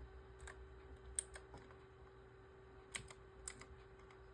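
A few scattered computer keyboard key presses, about seven short clicks, some in quick pairs, over a faint steady hum.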